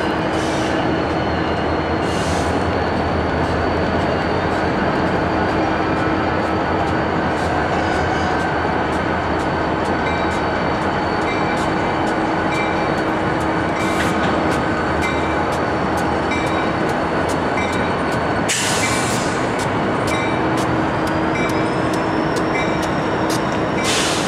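EMD SD70ACe diesel-electric locomotives running as they move slowly while switching. A steady high whine rises slightly near the end, and a few short hisses come through, the clearest about two-thirds of the way in and at the very end.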